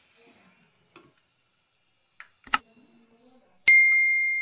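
A sharp click, then about a second later a single bright bell ding that rings out and fades slowly: the sound effect of a subscribe-button and bell-icon animation.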